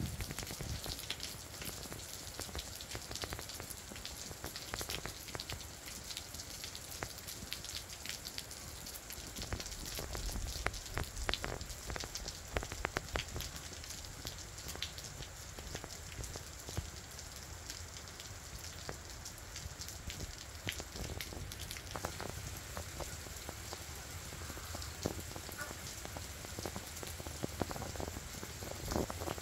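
Steady spring rain falling, with many individual drops striking close by.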